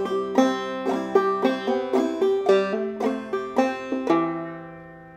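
Banjo played clawhammer style in double C tuning: a steady run of plucked notes and brush-thumb strums. The playing stops about four seconds in, and the last chord is left ringing and fading.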